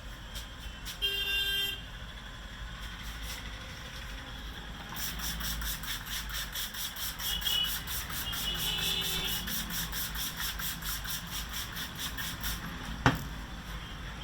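Head massage by hand: rhythmic tapping strokes on the head, about five a second, starting about five seconds in and running for several seconds, over a steady background hum. A single sharp crack stands out near the end.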